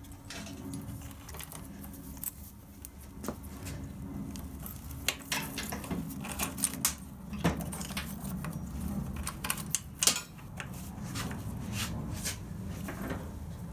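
Light clicks, knocks and rattles of a motorcycle wiring loom and its plug connectors being handled and pulled along the frame, over a steady low hum.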